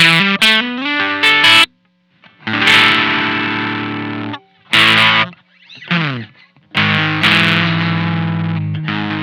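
Electric guitar (a Squier Telecaster) played through a Maestro Fuzz Tone FZ-M fuzz pedal at low gain. It plays short riffs with a slide up, then a chord left to ring and fade, a quick stab, a slide down the neck, and a last long fuzzy chord. There are brief stops between the phrases.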